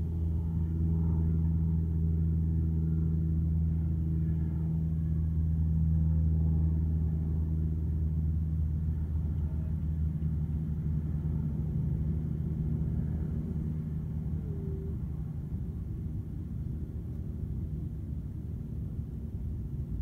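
Eachine Seagull FPV model aircraft's electric motor and propeller droning steadily in flight, growing fainter over the second half.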